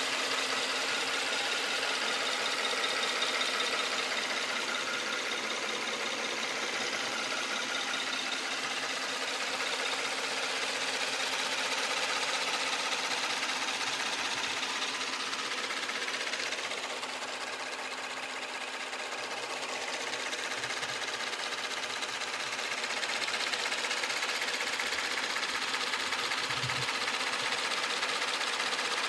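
Kia K900's 3.3-litre V6 GDI engine idling steadily under the open hood, heard up close with a fast, even, light ticking over the hum, typical of direct-injection fuel injectors.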